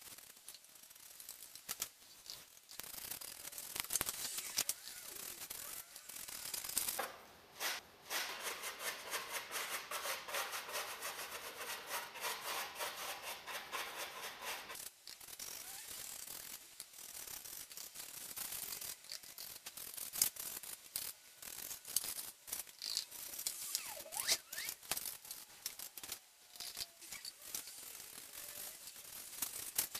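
A brush scraping and dabbing wet tile grout onto a rough cement-coated styrofoam rock surface, in quick repeated strokes.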